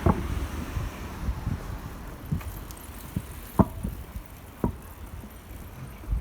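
Outdoor street ambience with low wind rumble on the microphone, broken by a few sharp clicks or knocks, the loudest about three and a half seconds in.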